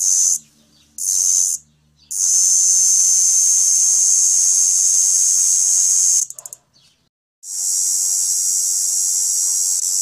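Cicada singing: a high, harsh buzz in two short pulses, then a long steady buzz of about four seconds. It stutters and breaks off, and starts again about a second later.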